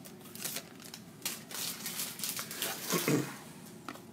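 Rustling and crinkling of a hockey card pack's wrapper and cards being handled and flipped through by hand, in short irregular rustles, with a brief low vocal sound about three seconds in.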